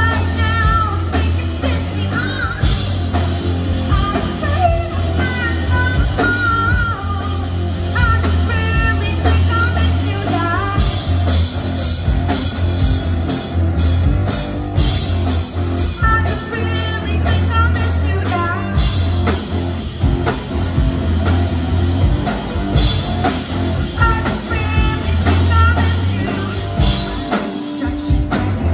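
Live rock band playing: drum kit, electric guitars and bass guitar, with sung vocals coming in and out over a steady bass line.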